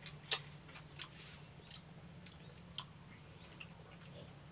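People eating santol fruit, sucking and chewing the pulp off the seeds: a few sharp wet mouth clicks and smacks, the loudest near the start, over a faint steady low hum.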